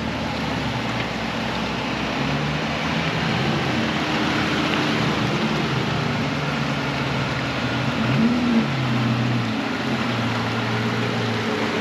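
Jeep Gladiator's engine running as the truck reverses slowly through door-deep muddy water, with the water sloshing around it. The engine note rises briefly about eight seconds in.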